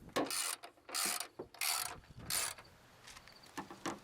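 Socket ratchet wrench being worked in four short strokes about two-thirds of a second apart, the pawl clicking through each stroke, then a few faint clicks near the end.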